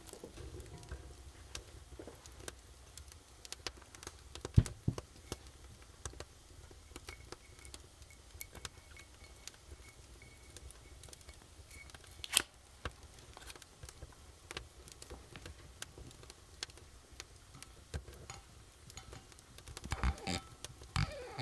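Close-up handling of a wine bottle: small clicks and scratches of fingers working off the plastic capsule over the cork, with two sharper clicks. Near the end comes a denser scraping as a metal corkscrew is twisted into the cork.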